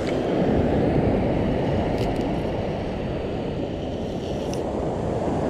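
Steady low rumble of wind buffeting the microphone over breaking surf, with a couple of faint ticks about two seconds in and again after four seconds.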